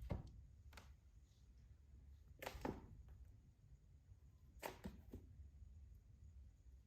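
Kittens playing: a few brief soft rustles and knocks over near silence. The loudest comes about two and a half seconds in, with another pair around five seconds.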